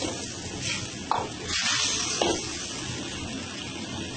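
Garlic chicken gravy in a wok hissing and bubbling steadily, just after cornflour has been added to thicken it. Two short sharp clicks come about a second in and again a second later.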